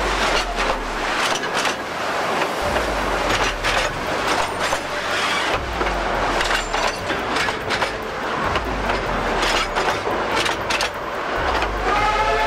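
A train passing close by at speed, its wheels clattering and clicking over the rails with a low rumble that swells every couple of seconds. A train horn starts to sound just before the end.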